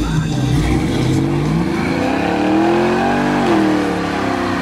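The GAZ Volga's truck-based 5.3 Vortec LM7 V8 with an LS1 intake, revved hard through its exhaust during a burnout with the rear tyre spinning. The revs pulse at first, then climb steadily to a peak about three seconds in and drop back before the end.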